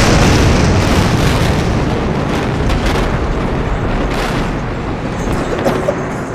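Explosion sound effect: a loud blast dying slowly away over several seconds, with a few sharp cracks and pops near the end.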